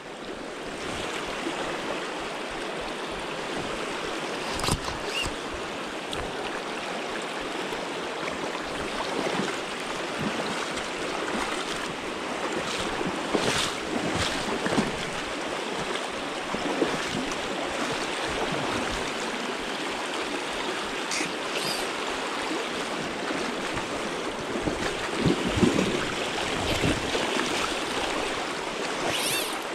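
Fast, shallow river current rushing over rocks in a riffle: a steady rush of water, with a few brief sharper knocks now and then.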